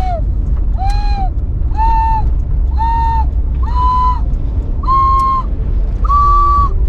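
An ocarina played in slow single notes, about one a second, climbing a scale step by step with one pitch repeated midway. A steady low engine and road rumble from the moving van runs underneath.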